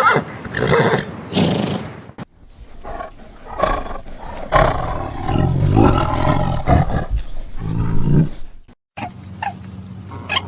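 A horse's neigh trails off in the first couple of seconds. After a cut, a big cat roars and growls in a run of deep, rough calls, which stop abruptly near the end.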